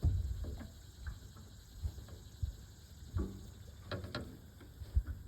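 Irregular low knocks and a few sharp clicks, unevenly spaced: about half a dozen in all, with the sharpest pair about four seconds in.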